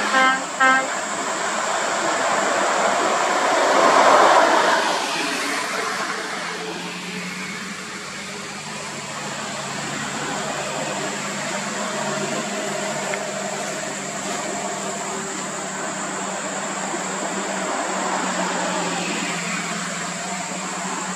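A few short horn toots at the very start, then a vehicle passing close about four seconds in, the loudest moment. After that, heavy diesel trucks of a loaded trailer convoy run steadily as they work up a winding slope, with passing car traffic.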